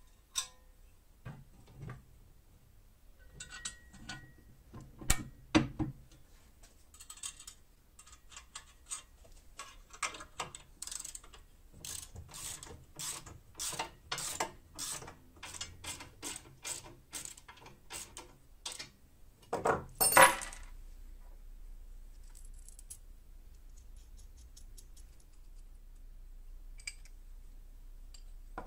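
Socket ratchet wrench clicking in a long run of strokes, about two a second, as a bolt is tightened on a steel belt-grinder frame. Around it, steel parts knock and clink as they are fitted together, with a loud clatter about two-thirds of the way through.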